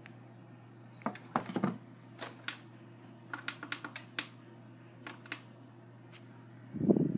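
A string of small sharp clicks and taps from handling gear and pressing buttons, over a steady low electrical hum. A short, louder low thump comes near the end.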